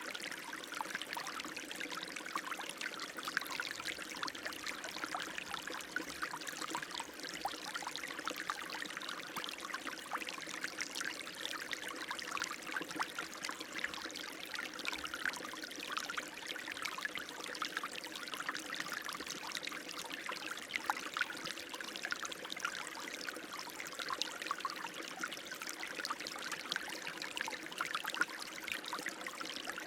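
Running water splashing and trickling steadily, an even, continuous flow with no change.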